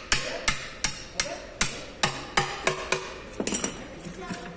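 Sharp metal-on-metal knocks, about two to three a second, as a long steel pry bar is driven against the oil pan's flange on an upturned Kia Rio engine block to break the pan's sealant and free it. A quick rattle of lighter knocks follows about three and a half seconds in.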